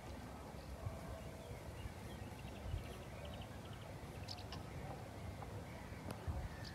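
Quiet waterside ambience: a steady low rumble of wind with a few faint small bird chirps, a short run about two and a half seconds in and another just past four seconds.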